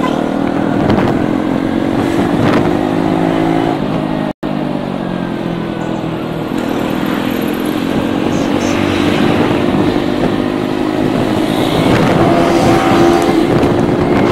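Motorcycle engine running steadily as the bike is ridden along a road, its pitch shifting a little with the throttle. The sound cuts out for a split second about four seconds in.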